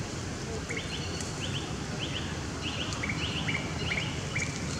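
A bird calling in the background: short rising chirps in pairs, repeated two or three times a second, starting about a second in, over a steady low outdoor rumble.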